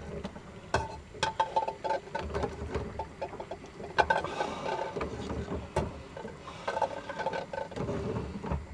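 Metal spoon clinking and scraping against a small saucepan as boiled eggs are lifted out and set into a bowl: irregular clicks and knocks, some with a short ring.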